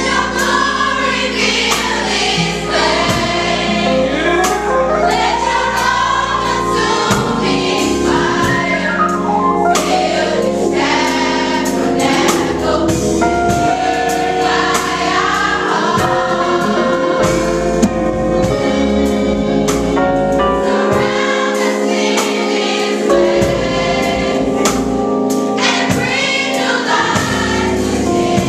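Youth gospel choir singing in full voice, backed by keyboard, organ and a drum kit with cymbals keeping a steady beat.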